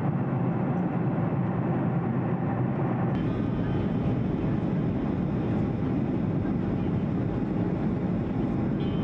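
Steady cabin noise of a jet airliner in flight, heard inside the cabin: a deep rumble of engines and rushing air. About three seconds in the sound shifts, adding a faint high whine over the rumble.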